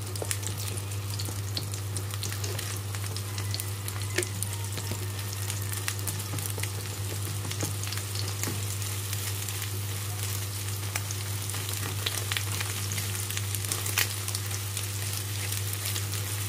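Beaten eggs frying in hot sunflower oil in a pan: a steady sizzle full of small crackles and pops, with a utensil stirring and scraping them. A steady low hum runs underneath.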